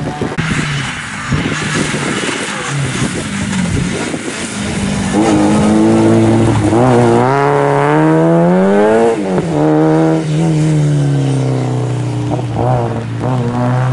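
Rally car engine approaching and passing on a wet tarmac stage. The revs climb for several seconds, drop sharply about two-thirds of the way through as the driver lifts for the corner, then hold lower before climbing again as it accelerates away. Tyres hiss on the wet road as the car approaches.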